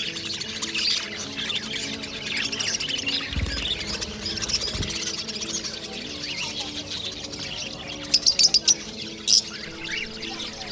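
A flock of caged budgerigars and lovebirds chattering and chirping, with a quick run of loud, shrill shrieks about eight seconds in and one more just after.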